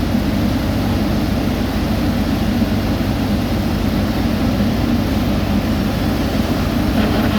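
Heavy road-construction machinery engine running steadily at a constant speed, a loud low drone with no change in pitch.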